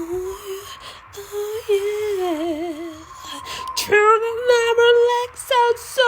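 A singing voice holding wordless, hummed-sounding notes, wobbling in a wide vibrato about two seconds in, then louder, brighter held notes from about four seconds in.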